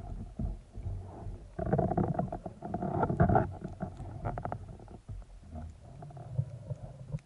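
Muffled underwater rumble of water moving around a camera housing, with scattered small clicks and knocks as gloved hands handle a speargun's rubber band and muzzle. The rumble swells loudest a couple of seconds in, and the clicks cluster around the middle.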